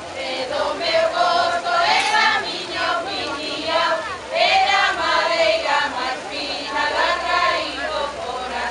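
A group of women singing a Galician folk song together in chorus, the voices moving through phrase after phrase.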